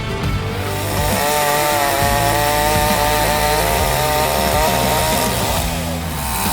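Gasoline chainsaw's two-stroke engine running at high revs while cutting wood. Its pitch wavers as the chain bites, and it dips briefly about five and a half seconds in.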